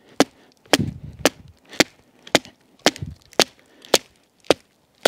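Wooden baton striking the spine of a Cold Steel SRK knife to drive the blade down through a softwood round and split it. About ten sharp knocks at an even pace, close to two a second.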